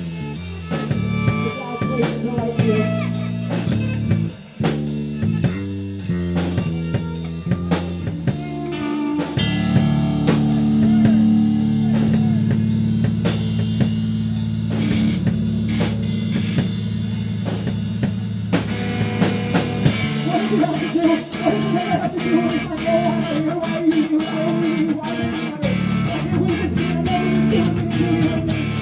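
Live rock band playing loudly: drum kit, bass guitar and electric guitar. The drums strike steadily throughout. From about ten seconds in a low bass note is held, and from about twenty seconds a wavering guitar line comes in.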